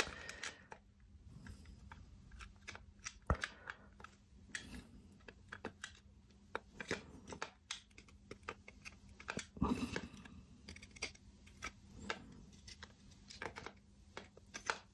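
Faint, irregular clicks and taps of a Nest thermostat's display and metal ring being handled and pressed together by hand, with a sharper click about three seconds in and a small cluster of clicks near ten seconds.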